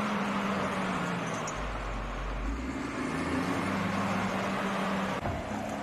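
Motor vehicle engine running steadily amid road noise, a low hum that breaks off briefly about five seconds in.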